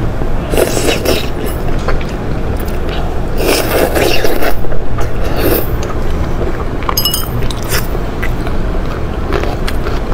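Close-miked eating sounds: wet chewing and slurping of soft food in irregular bursts, with short clicks between them.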